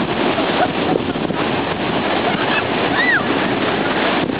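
Sea surf breaking and washing up a sandy beach, a steady loud rush, with wind buffeting the microphone. A brief high cry rises and falls about three seconds in.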